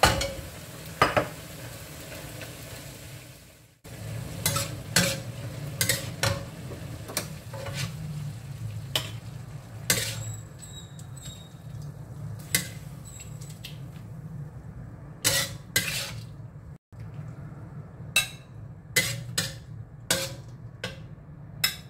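Metal spatula scraping and clinking against a steel wok as beef and wood ear mushrooms are stir-fried and scooped out onto a ceramic plate, with frequent sharp clinks over the food sizzling and a steady low hum.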